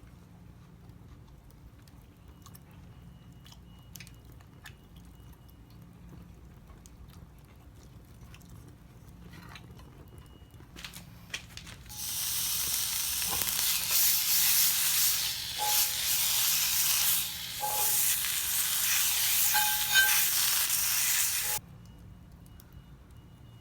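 Chijimi pancake batter sizzling loudly as it fries in a hot pan over a fire. The sizzle starts suddenly about twelve seconds in, has a few knocks in it, and cuts off sharply about ten seconds later. Before it there are only faint clicks.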